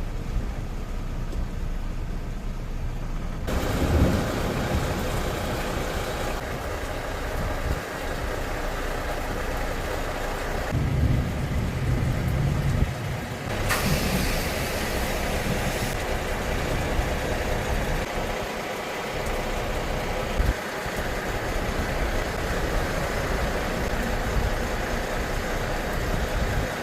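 Steady motor-vehicle engine and road noise, broken by several abrupt changes in character where clips are cut together.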